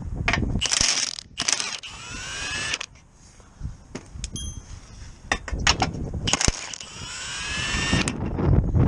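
Impact wrench running on bolts in the car's metal bumper reinforcement bar. It comes in bursts near the start and again near the end, the motor's pitch rising during each run, with clicks and knocks in between.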